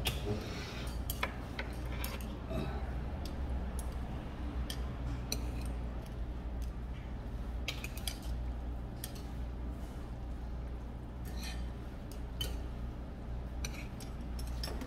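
Metal chopsticks clicking and scraping against the bowl as jajangmyeon noodles are stirred into the black bean sauce: light, irregular clicks over a steady low hum.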